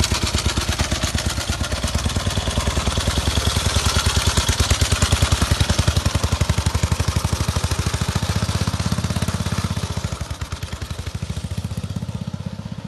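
1925 BSA motorcycle engine running with a rapid, even beat of exhaust pulses, a little quieter in the last few seconds.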